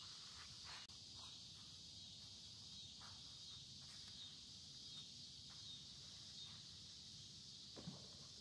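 Near silence, with faint steady insect chirring and a few faint ticks.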